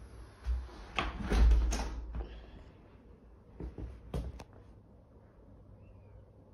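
A few knocks and clicks over low thumps in the first couple of seconds, the loudest about a second and a half in, then two or three sharper clicks near the middle and quiet room tone.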